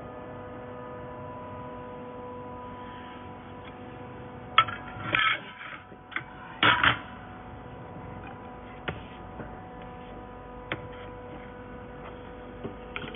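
Welding equipment running with a steady whine, broken by two short loud bursts about five and seven seconds in and a few sharp clicks after.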